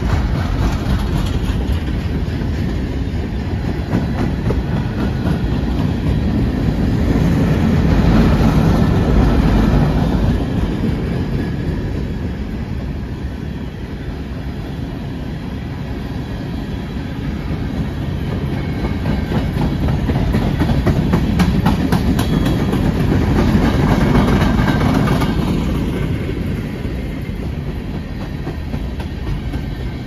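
Empty coal hopper cars of a freight train rolling past close by: a steady rumble of steel wheels on rail with a rhythmic clickety-clack, growing louder twice, about a third of the way in and again past two-thirds.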